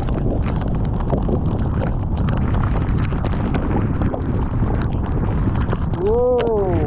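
Stormy wind buffeting the microphone as a steady low rumble, with many scattered sharp clicks throughout. Near the end, a short call rises and then falls in pitch.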